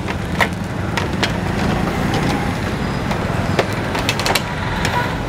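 Clear plastic hose being uncoiled and handled, giving scattered light clicks and taps, over a steady low rumble.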